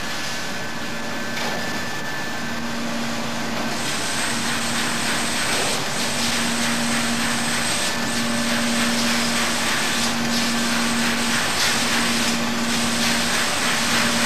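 Bakery production-line machinery running, a conveyor carrying trays of hamburger buns to the oven: a steady mechanical hiss with a low hum that drops out briefly every few seconds.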